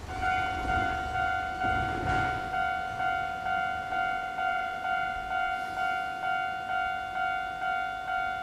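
Electronic railway level-crossing warning bell starts just after the opening and rings one repeated pitched tone about twice a second, the signal that a train is approaching.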